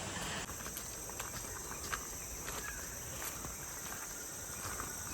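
Steady high-pitched droning of insects, with faint scattered ticks and light footsteps.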